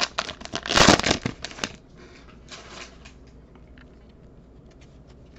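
Foil trading-card pack wrapper torn open and crinkled by hand, loud crackling for about the first second and a half. This is followed by fainter rustling of the cards being slid out of the opened wrapper.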